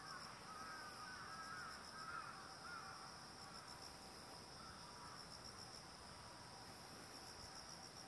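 Faint steady high-pitched chorus of insects, with faint wavering calls of a distant bird in the first few seconds.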